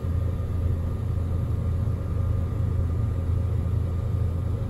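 Steady low drone of a light aircraft's engine and propeller in level flight, heard from inside the cabin.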